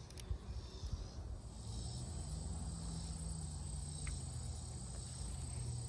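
Insects singing in summer heat: a steady, high-pitched drone that sets in about a second and a half in, over a low rumble.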